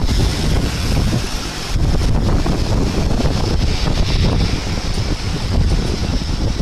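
Gulfstream G650 business jet's twin rear-mounted turbofans running at taxi power, a steady high whine, under heavy wind buffeting on the microphone.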